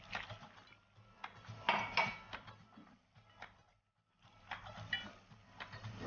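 Pot of red lentils and rice at the boil: irregular small pops and clicks of bubbles bursting, dropping out briefly about four seconds in.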